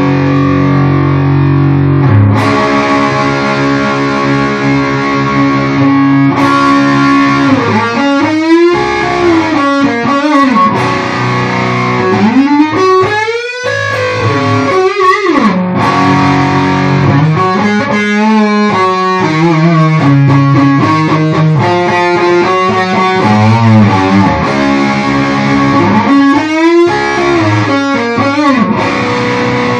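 Distorted electric guitar playing an instrumental passage: held chords at first, then notes that repeatedly bend and glide up and down in pitch.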